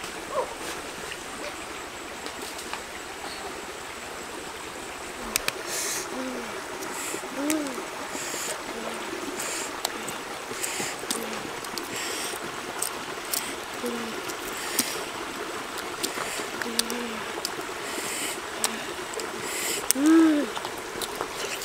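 Shallow river running over rocks, a steady rush of water. From about five seconds in come scattered crisp crackles of boiled-egg shell being peeled by hand, and now and then a short low call that rises and falls in pitch.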